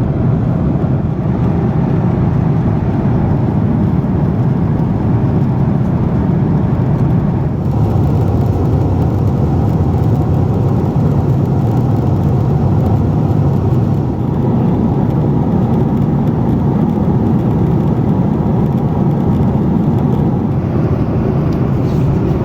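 Steady low rumble of engine and airflow noise inside the cabin of a Boeing 767-400 airliner.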